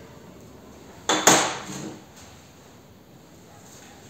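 A short metallic clatter about a second in, from metal parts handled on a steel welding table, dying away within a second.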